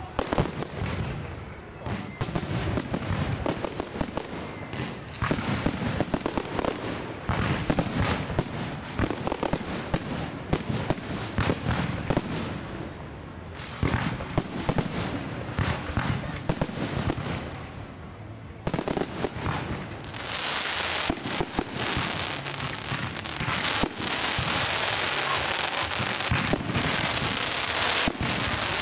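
Fireworks display: a rapid string of bangs and pops, and about two-thirds of the way through a dense, continuous crackling that goes on to the end.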